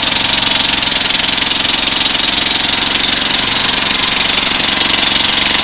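Small portable generator engine running steadily on a GEET fuel processor (a bubbler setup), a constant engine note with a strong hiss over it and no change in speed.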